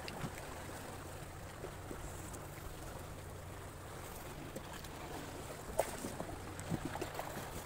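A steady low hum under an even hiss, with a few small clicks and rustles about six seconds in from a hook being worked out of a caught fish's mouth.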